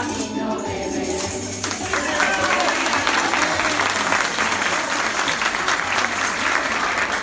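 Music with tambourines shaking, then, about two seconds in, an audience bursts into sustained applause over the music as the dance ends.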